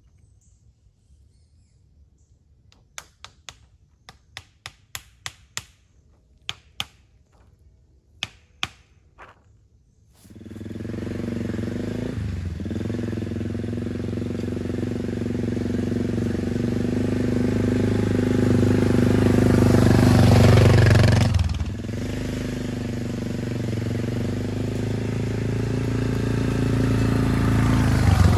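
About a dozen hammer blows in short runs, nailing a sign to a tree. Then a four-wheeler (ATV) engine starts up and runs steadily, growing louder as the ATV rides up the trail, with two brief dips in the engine note, and passes close by near the end.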